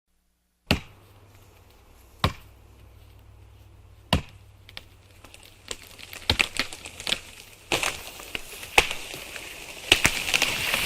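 Axe chopping into a tree trunk. Three single strikes come a second or two apart, then quicker strikes and cracks crowd together from about halfway, with a rising rush of noise near the end.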